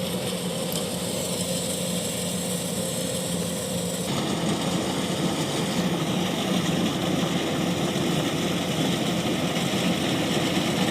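Kubota DC-105X combine harvester running steadily, its diesel engine and machinery working, growing louder and rougher about four seconds in.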